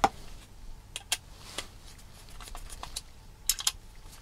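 Sharp plastic clicks and taps as a screwdriver works a screw into a hard-plastic RC car chassis and the parts are handled. The loudest click comes right at the start, with more scattered clicks about a second in and a quick pair about three and a half seconds in.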